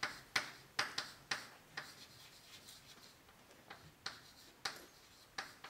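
Chalk writing on a blackboard: a string of sharp taps and short scratches as letters are stroked on, about two a second at first, a quieter stretch in the middle, then more taps near the end.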